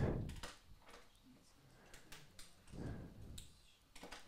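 Faint taps and clicks of a pen on a drawing tablet while a small box is drawn, with a soft low thump at the start and another about three seconds in.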